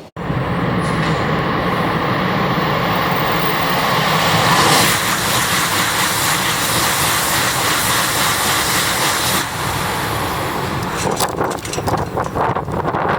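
Tohoku Shinkansen train passing at high speed by a tunnel: a loud, steady rush of air and running noise that is strongest about halfway through. The high hiss drops away after about nine seconds, leaving gusty wind buffeting.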